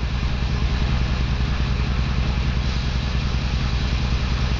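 Mercedes air-suspension compressor running with a steady, rapidly pulsing hum, switched back on to hold the ride height: it keeps cycling on and off because of an air leak, which the owner takes for why the old compressor failed.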